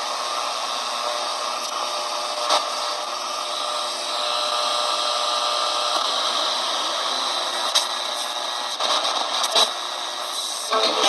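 Static hiss from a QFX portable shortwave receiver tuned between stations, with faint steady whistling tones in the noise and a few sharp crackles.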